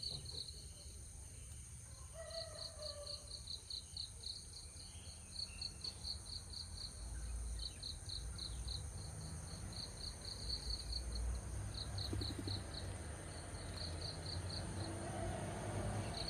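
Crickets chirping in short pulsed trains over a steady high insect whine, with a brief bird call about two seconds in. A low rumble rises from about halfway through.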